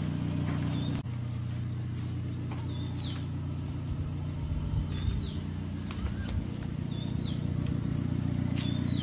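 Ford 6600 tractor's three-cylinder diesel engine idling steadily. A bird gives a short high chirp about every two seconds.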